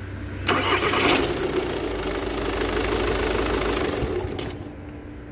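A 1.6 TDI diesel engine is started, the sound coming on suddenly about half a second in and running on as a harsh mechanical noise before easing near the end. The noise is the starter motor's pinion staying pushed forward and rubbing against the dual-mass flywheel instead of retracting.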